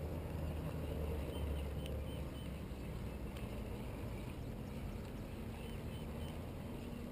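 Steady low hum of a boat motor running, with faint short chirps above it.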